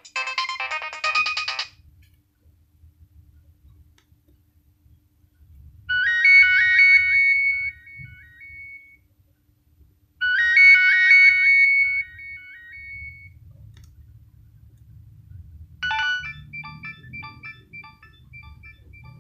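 Nokia 6100 mobile phone ringtones playing one after another. One tune ends early, a short melodic phrase plays twice with a pause between, and a different tune of short, quickly repeated notes starts about three-quarters of the way in.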